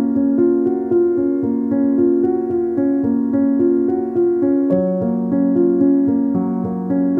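Background piano music: a steady flow of notes over held lower chords.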